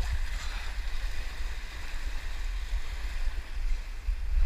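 Surf washing and foaming over shoreline rocks, a steady hiss, with wind buffeting the microphone in a heavy low rumble.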